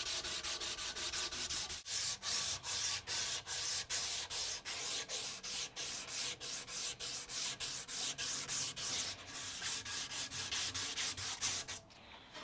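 Strip of 320-grit sandpaper pulled back and forth shoeshine-style across a wooden knife handle, a rapid rhythmic rasping at about four strokes a second that stops shortly before the end.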